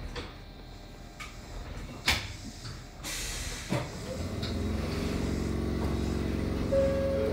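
Kōnan Railway 7000-series electric train braking to a stop. A sharp clunk about two seconds in is followed by a burst of compressed-air hiss as it halts. A steady electrical hum then sets in, and a short steady tone sounds near the end.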